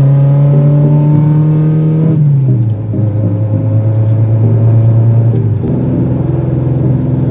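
Car engine heard from inside the cabin while driving at speed. Its pitch creeps up, falls about two seconds in as at a gear change, then holds steady and changes again near the end.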